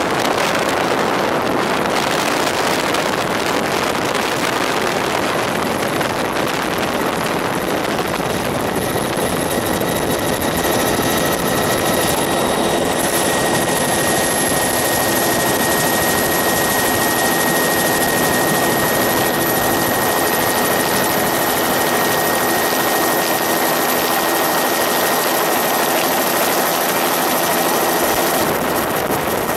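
Steady rotor and motor noise of the aircraft carrying the camera: a dense, even rush with a held high whine that creeps slowly upward in pitch.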